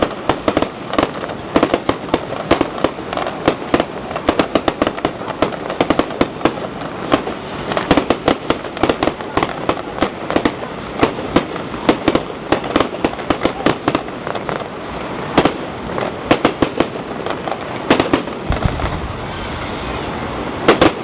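Fireworks going off: a dense, irregular string of crackling pops and bangs, several a second. The bangs thin out near the end as a steady low rumble comes in.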